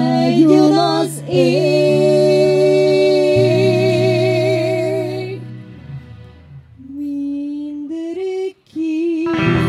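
A live band: a woman sings long held notes with a wide vibrato over steady, sustained low chords. About halfway through the music drops quieter, then her voice comes back on a lower line.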